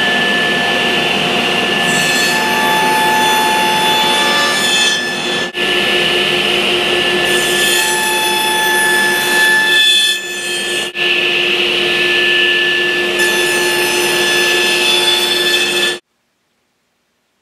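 Power saw running and cutting wood: a steady loud machine noise with a constant whine, broken by a couple of brief dropouts. It cuts off suddenly near the end.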